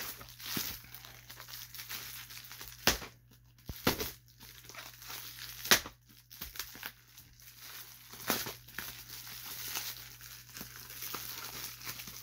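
A shipping mailer is crinkled and pulled at by hand, with several sharp rips as it is torn open; the loudest rip comes about halfway through.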